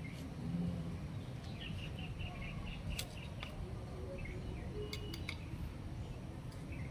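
A bird chirping in a quick run of short high notes, over a steady low rumble, with a few sharp clicks.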